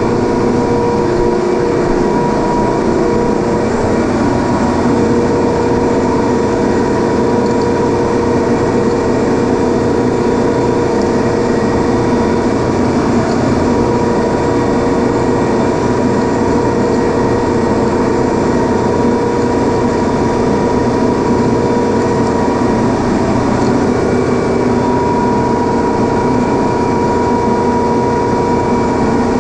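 Industrial refrigeration machinery running steadily: a loud, constant drone with a steady whine on top.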